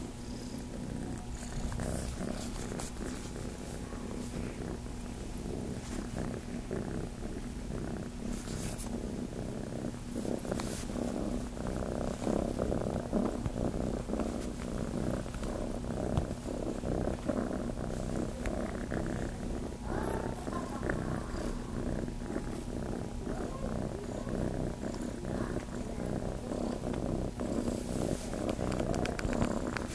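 Tabby kitten purring steadily close to the microphone while nuzzling into a blanket as if to nurse. The purr grows louder about a third of the way in.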